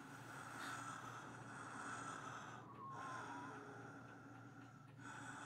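Faint, rattly, laboured breathing of a gravely ill man, part of an animated film's sound design, with a louder breath about five seconds in.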